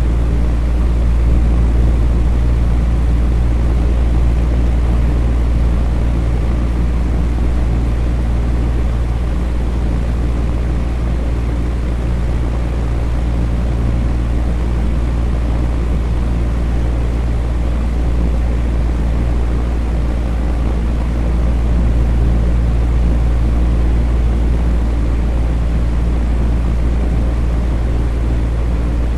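Electric fan running steadily: a constant low hum with a rush of air noise, unchanging throughout.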